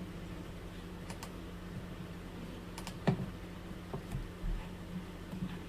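Scattered computer-keyboard clicks, a few at a time and the loudest about three seconds in, over a steady low electrical hum.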